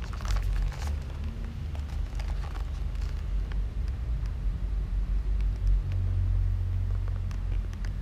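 A low, steady rumble, a little stronger near the end, with a few faint light clicks from the cardboard box being handled.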